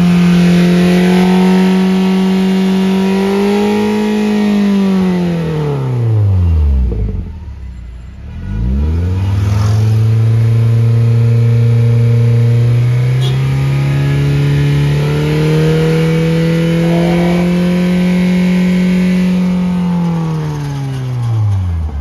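Toyota Premio's four-cylinder engine revved through an aftermarket remote-control valved exhaust, heard at the tailpipe, with the exhaust in its low-sound setting. The revs are held high, drop away to near idle about six seconds in, climb back about two seconds later and are held again, stepping up in two stages, then drop off near the end.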